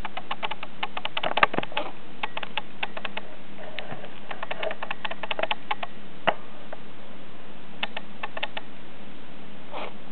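Lovebird wheezing: runs of quick, sharp little clicks and rasps, densest about a second and a half in and again midway, with a longer rasp near the end. An avian vet found no swelling or infection and put the wheezing down to dry air or an airborne irritant.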